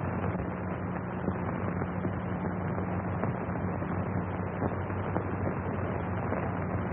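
Steady hiss and low hum of a worn 1930s optical film soundtrack, with a few scattered crackles.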